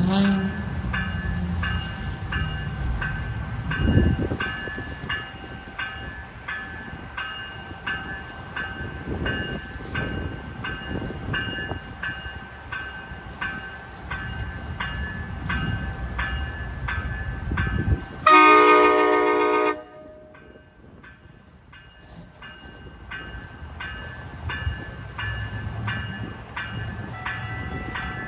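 Passenger train rumbling past with a bell ringing steadily about twice a second. About eighteen seconds in comes one short chord blast from cab car 249's K5LA five-chime air horn. Then the rumble falls away and the bell goes on more faintly.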